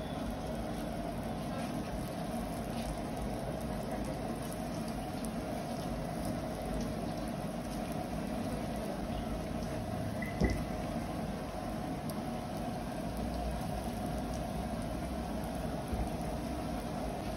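Steady low background din with no clear single source, broken once by a short sharp knock about ten and a half seconds in.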